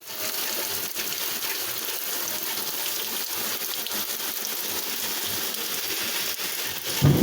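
Steady rain falling, an even hiss with scattered drop ticks. A louder, deeper rumble comes in right at the end.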